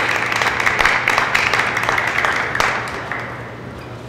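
Audience applauding after a point, dense clapping that dies away about three seconds in.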